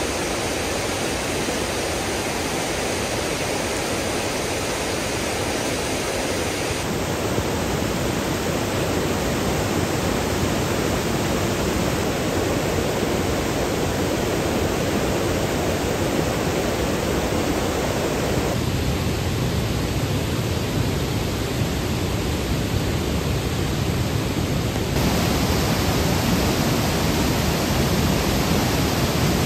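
Flood-swollen mountain river rushing over boulders in whitewater rapids: a steady, unbroken rush of water. Its tone shifts abruptly three times and is a little louder near the end.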